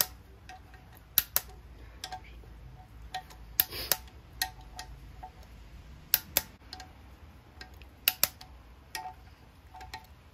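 Hand torque wrench clicking as camshaft cap bolts are brought to about 20 ft-lb. There are sharp metallic clicks, several in quick pairs, with fainter ratchet ticks between them.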